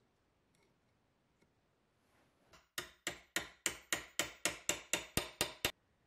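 Hammer tapping a brass punch against a Zippo lighter part clamped in a bench vise. About a dozen quick, even metal strikes come at about four a second, each with a short ring, starting about three seconds in.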